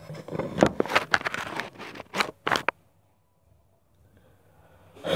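Small objects handled close to the microphone: a quick run of scrapes, rustles and clicks that stops about three seconds in.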